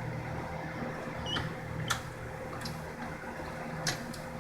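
Three sharp clicks, two close together and one near the end, as the motorcycle's gear shifter is worked to find neutral, over a steady low hum.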